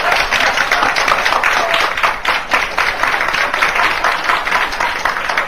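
Audience clapping and applauding in reaction to a joke's punchline, a dense, steady patter of many hands that eases off slightly toward the end.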